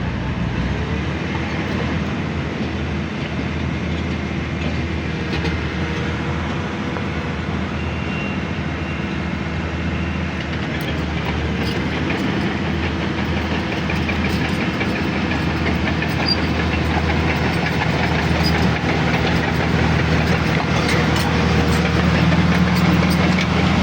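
Heavy diesel earthmoving machinery running steadily, with faint clanking and rattling in the second half, growing slowly louder toward the end.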